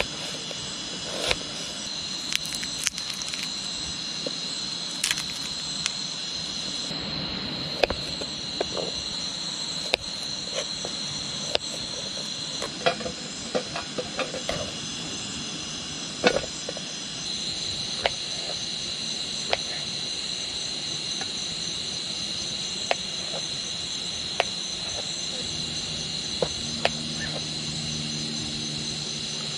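A knife cutting through an onion on a plastic cutting board, making irregular sharp knocks as the blade meets the board. A steady high chorus of crickets runs underneath.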